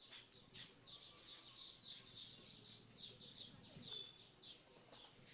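Faint bird chirping: a quick run of short, high chirps, several a second, without a break.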